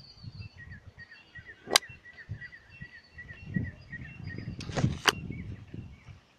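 Small birds chirping over uneven low rumbling on the microphone, with two sharp clicks, one about two seconds in and one about five seconds in.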